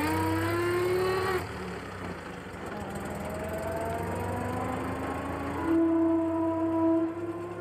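Engine of a pre-1918 vintage open touring car pulling away, its pitch rising steadily as it accelerates. There is an abrupt change about a second and a half in, and the engine is loudest about six seconds in.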